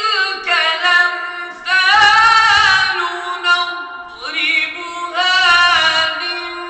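A solo voice chanting religious recitation in several long, ornamented phrases, the held notes wavering, with short breaks between phrases.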